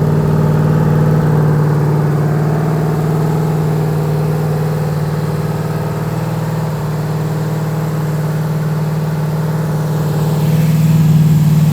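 Freshly rebuilt 350 small-block V8 running steadily at about 2,000 RPM during camshaft break-in. The engine picks up a little near the end.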